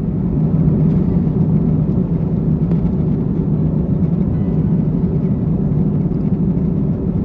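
Steady drone inside an airliner's cabin in flight: engine and air noise with a low hum.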